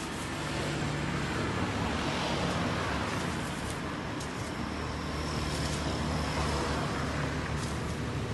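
Road traffic: the steady hum of vehicle engines and tyres going by, swelling and fading as vehicles pass.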